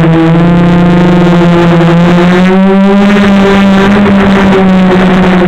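Multirotor drone's motors and propellers humming loudly close to the onboard camera: a steady whine of several tones at once, its pitch rising slightly about two seconds in.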